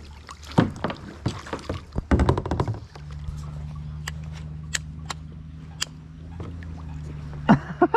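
Scattered knocks and clicks around a kayak as a hooked fish is brought up beside the hull. A steady low hum comes in about three seconds in.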